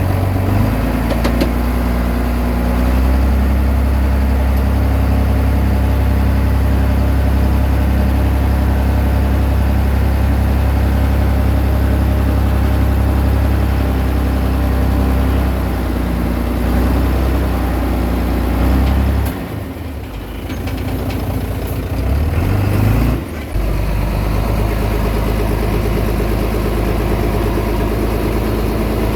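Komatsu D20P bulldozer's diesel engine running with a steady low drone. About twenty seconds in the engine note drops away for a few seconds, then comes back up and runs steadily again.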